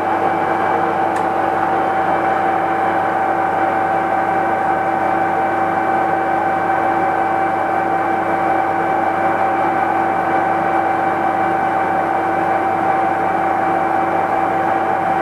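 IZh 1I611P metal lathe running with its newly fitted chuck spinning: a steady whine of several fixed tones over a mechanical hum.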